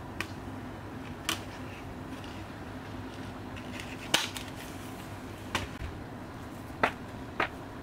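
Sharp plastic clicks and taps from a Blu-ray case and disc being handled, about six in all. The loudest, about four seconds in, is the disc being pressed back onto the case's centre hub. A steady low hum runs beneath.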